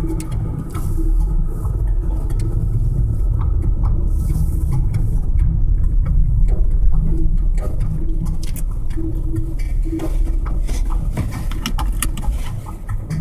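Car driving slowly, heard from inside the cabin: a steady low rumble of road and engine noise, with frequent light clicks over it.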